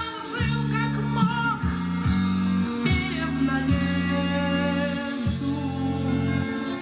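Rock music with a singer over sustained bass notes, played from a Yamaha CA-810 stereo amplifier through Klipsch Chorus II loudspeakers and picked up in the room.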